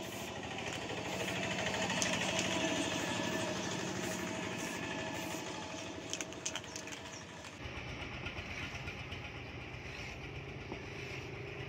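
An engine running steadily, turning to a deeper, pulsing low note about two-thirds of the way through, with a few sharp clicks near the middle.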